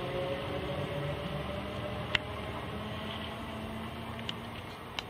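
Class 334 electric multiple unit running away along the track. Its motor whine falls slowly in pitch and the rail rumble fades, with a few sharp clicks, the loudest about two seconds in.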